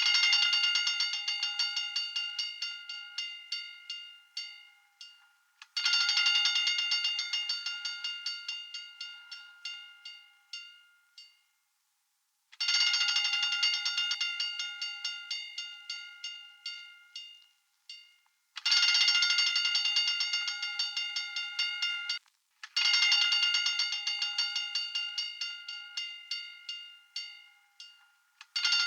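Fire alarm bell ringing in repeated bursts of rapid clapper strikes, a new burst every four to seven seconds. Each burst starts loud and fades as the strikes slow and thin out, with brief gaps of silence between.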